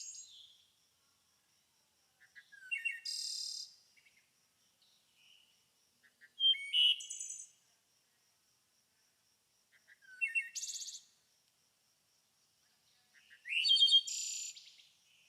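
A bird singing four short, high phrases of quick notes and trills, each about a second long, a few seconds apart, with silence in between.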